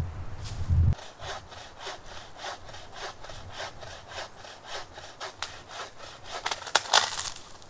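Hand saw cutting firewood in steady back-and-forth strokes, about three a second, a little louder near the end. A low rumble in the first second.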